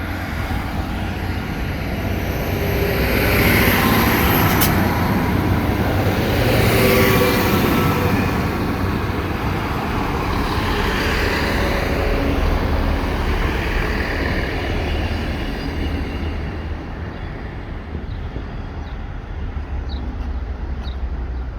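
Diesel passenger train pulling through the station, a steady low rumble of engine and wheels that swells over the first few seconds and eases off in the last few.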